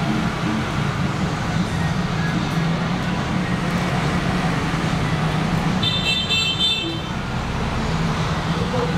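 Steady road traffic noise with a brief high horn toot about six seconds in.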